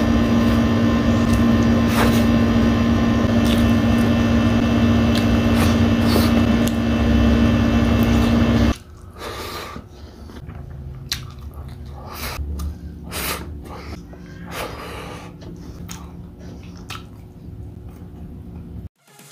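Loud, steady air-conditioner hum with a low drone, over close-miked chewing and mouth clicks; about nine seconds in the hum cuts off suddenly, leaving quieter chewing, smacking and wet mouth sounds of eating rice and meat by hand, then a brief silence near the end.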